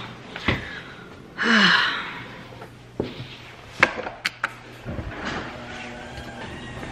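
Puffy jacket rustling as it is pulled on, with a short sigh about a second and a half in and a few sharp clicks and knocks between about three and four and a half seconds.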